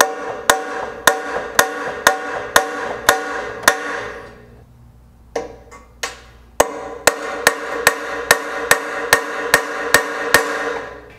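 Claw hammer tapping a steel transfer punch through a grill guard's mounting holes, marking the hole positions on the tractor for drilling. Sharp metallic strikes about two a second, each leaving the steel ringing. There are two runs of strikes with a short pause and a couple of single taps in the middle.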